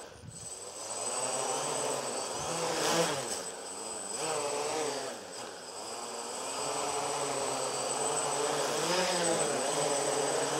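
Small radio-controlled quadcopter's electric motors and propellers buzzing, their pitch rising and falling together as the throttle changes while it sits on grass, with a brief dip in loudness about five seconds in.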